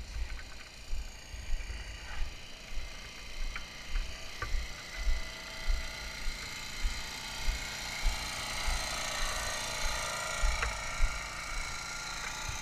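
Footsteps of someone walking with the camera, a low thud about twice a second. Behind them a steady mechanical drone with a high whine grows louder in the second half.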